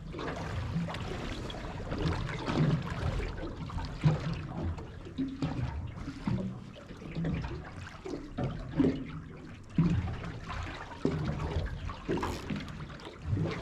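Water sloshing and splashing in irregular surges, with a low rumble under it.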